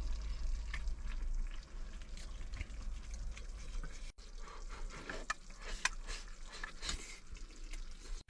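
Eating at a bowl: scattered small clicks and scrapes of utensils against the bowl, with a brief break about four seconds in.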